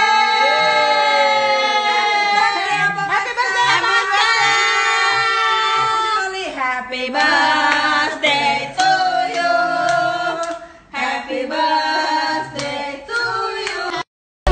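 A song: voices singing a melody with held notes over instrumental backing. It cuts off abruptly near the end.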